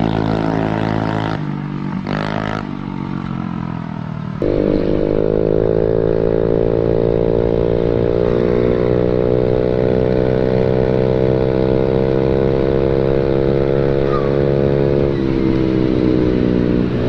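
Honda Beat automatic scooter with a stock engine running through an aftermarket racing exhaust. After brief clips of it passing by, it is heard from the rider's seat pulling steadily, its engine note slowly rising as it gathers speed and shifting near the end.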